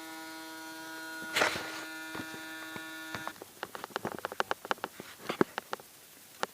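Small electric water pump humming steadily as it draws water into a radiator, with a brief hiss about a second and a half in. The hum cuts off about three seconds in, and irregular sharp crackles and ticks follow.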